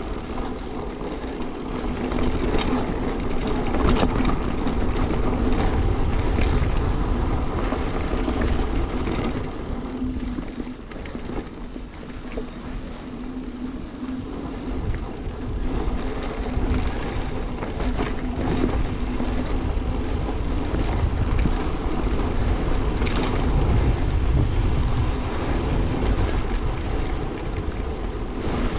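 Mountain bike rolling along a dirt forest trail: a steady rumble of tyres on the ground with scattered knocks and rattles from the bike over bumps, easing off for a few seconds midway.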